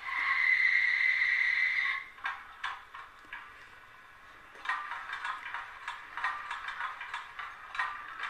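Fleischmann class 86 model tank locomotive running on model track: a loud, steady high-pitched squeal for about two seconds, then rapid irregular ticking as its wheels run over rail joints and points.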